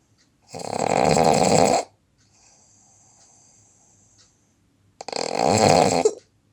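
A sleeping person snoring: two long, loud snores about four seconds apart, with a faint breath between them.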